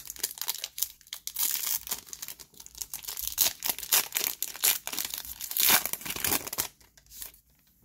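Foil-lined trading card pack wrapper crinkling and tearing as it is worked open by hand: a dense run of crackling that stops about seven seconds in. The old wrapper is stuck fast and hard to open.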